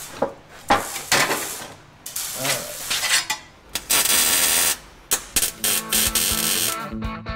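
Sheet steel clattering and scraping as it is set in and bent on a small manual sheet-metal brake, with a longer hiss about four seconds in. Background music comes in near the end.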